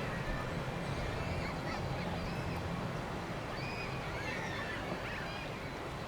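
Small birds chirping faintly in short rising and falling calls, over a steady low rumble of wind.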